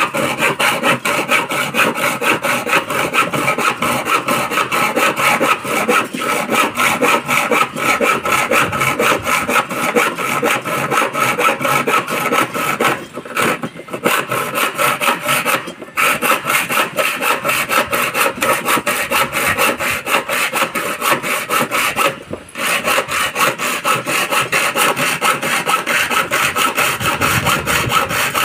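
Hand hacksaw cutting through a slotted metal angle bar, with fast, steady back-and-forth strokes, pausing briefly three times.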